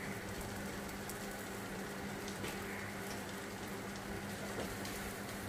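Milk tea simmering in a steel saucepan, a steady fizzing and bubbling of the frothy surface, with a low steady hum underneath.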